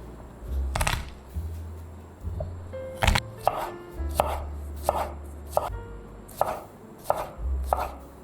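Kitchen knife chopping food on a cutting board: single sharp strokes at an uneven pace, about one every half to one second.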